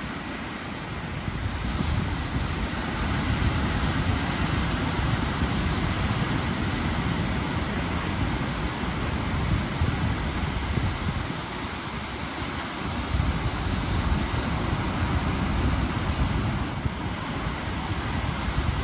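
Ocean surf washing ashore, with wind buffeting the microphone in a low rumble that swells and eases.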